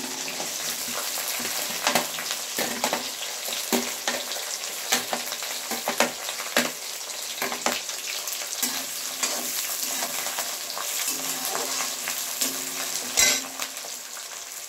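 Crushed shallots and garlic sizzling in hot sesame oil in a pan, stirred, with frequent short scrapes and knocks against the pan; the loudest knock comes near the end.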